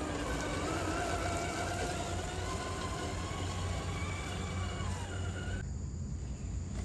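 Whine of RC scale crawlers' electric motors and gear drivetrains, its pitch rising and falling as the throttle is worked while they climb over dirt and roots. The whine cuts off suddenly about five and a half seconds in.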